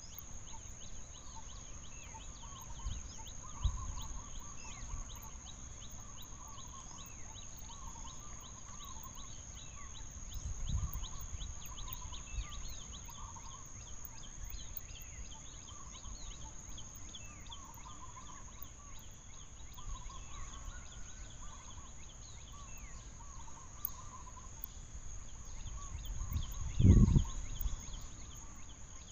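Outdoor forest ambience: a steady high-pitched whine, with repeated warbling, bird-like calls over it. A few low thumps come through, the loudest near the end.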